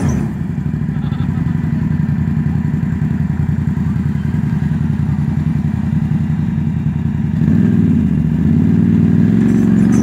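ATV engine running at low speed near the microphone with a steady pulsing note. The engine drops back right at the start, then revs up gently about seven and a half seconds in, its pitch rising and dipping.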